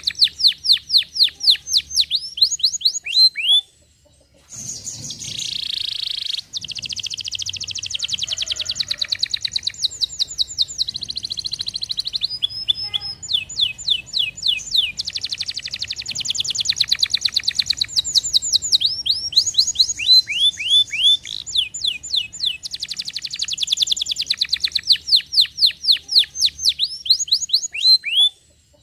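Domestic canary singing long, rapid trills of repeated high, downward-sweeping notes, the tempo and note shape changing from phrase to phrase, with a brief pause about four seconds in and another near the end.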